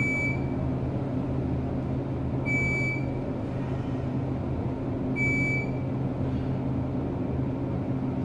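Glass elevator cab descending through the atrium: a steady motor hum, with a short electronic chime about every two and a half seconds, three in all, as the cab passes each floor.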